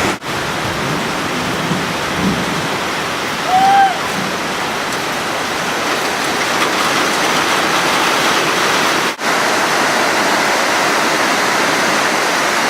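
Heavy tropical-storm rain pouring steadily, with a dense, even hiss of falling and running water. The sound breaks off for a moment twice, and a brief high pitched squeak rises and falls about four seconds in.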